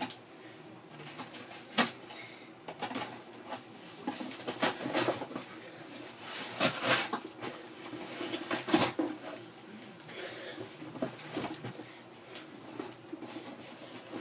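Irregular rustling and scraping strokes from sweeping up small bits of packing, with a few sharper knocks among them.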